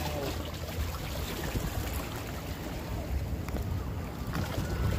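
Shallow sea water washing and lapping over shoreline rocks, a steady rushing noise, with wind rumbling on the microphone.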